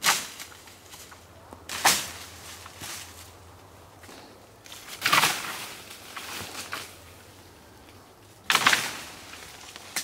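A long wooden pole striking the branches of a chestnut tree to knock down chestnuts, four blows a few seconds apart. Each blow starts sharply and is followed by a brief swishing rustle of shaken leaves.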